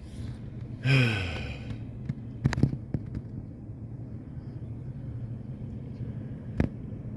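A man's low groaning sigh, falling in pitch, about a second in, followed by a few sharp knocks and a single knock near the end, over a steady low rumble.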